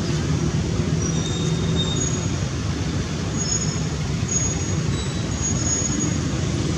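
Steady low rumbling background noise, with a few faint, brief high-pitched tones scattered through it.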